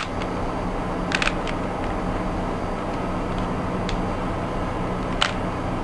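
Plastic Rubik's cube being twisted: a few short sharp clicks, a quick cluster about a second in and a stronger one near the end, over a steady background hiss.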